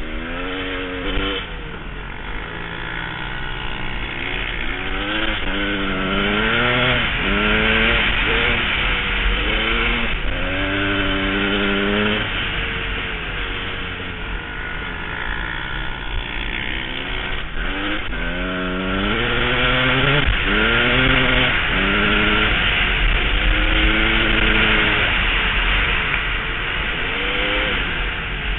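KTM EXC enduro dirt bike engine being ridden hard, its pitch climbing again and again and dropping back as the rider accelerates and shifts through the gears, easing off for a stretch midway. Heavy wind rushes over the microphone.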